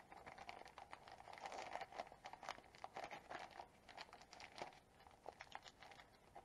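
Faint crinkling and small crackles of a plastic parts bag being handled, densest in the middle of the stretch.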